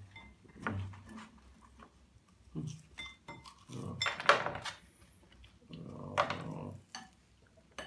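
A man eating French fries by the handful, chewing with his mouth full and making muffled throaty noises of enjoyment, louder about four seconds and six seconds in. Soft clicks come from fries being picked out of bowls.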